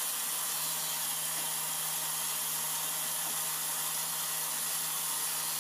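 Tap water running steadily into a sink, an even hiss, with a steady low hum underneath.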